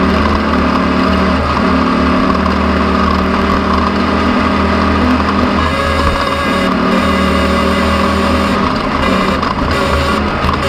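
An engine running steadily at a constant speed, its hum holding even throughout.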